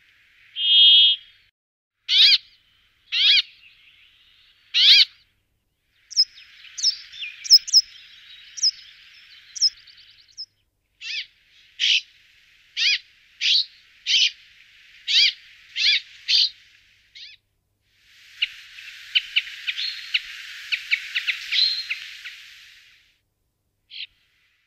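Brambling calls: a long buzzy note about a second in, then a series of short downward-sweeping calls spaced roughly a second apart, and later a rapid scatter of short chirps over a faint background hiss.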